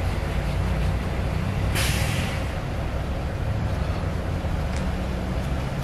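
Steady low rumble of an idling vehicle engine, with a short, sharp hiss about two seconds in.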